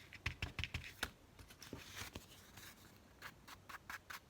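Scattered light clicks and taps with brief soft rubbing: paper and craft supplies handled on a worktable as an ink pad is taken up for inking paper edges.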